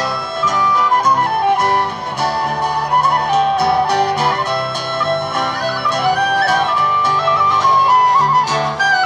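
A traditional tune played on a tin whistle, the melody moving around over a plucked string accompaniment.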